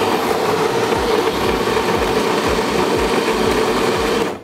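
Built-in grinder of an Otten 708 automatic espresso machine grinding coffee beans for a black coffee, a steady whirr that cuts off suddenly near the end.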